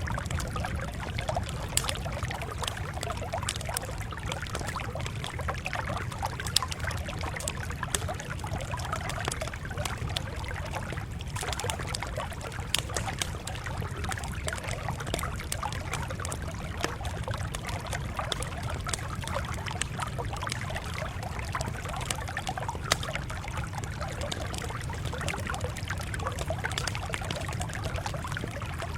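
Wood fire crackling steadily, with frequent sharp pops and snaps over a low, even rumble.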